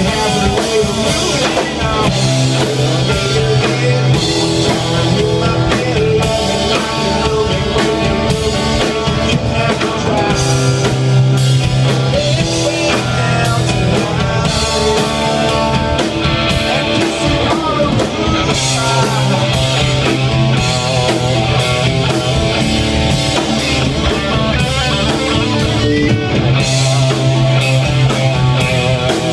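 Live rock band playing loud: electric bass, electric guitar and drum kit, with a male lead singer.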